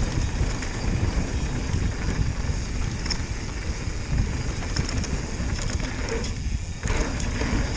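Mountain bike rolling fast down a packed dirt and gravel trail: tyres crunching over grit, with scattered clicks from the bike and wind buffeting the action camera's microphone. About six seconds in, the tyre noise drops away for half a second, as when the wheels leave the ground off a jump, and comes back with a knock on landing.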